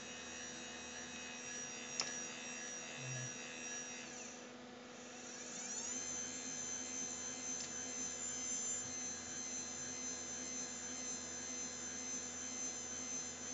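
Windshield wiper motor running under a PWM H-bridge speed controller: a steady electric hum with a high whine. A click comes about two seconds in, and about four seconds in the whine winds down and then starts again with a rising sweep, as the motor stops and is switched to run the other way on the forward/reverse switch.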